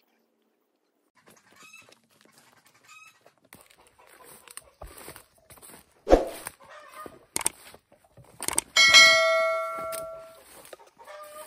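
Notification bell ding from a subscribe-button animation. It comes in suddenly about two-thirds of the way through, rings, and fades over about a second and a half. Before it there are a few crunching steps through undergrowth and faint chicken calls.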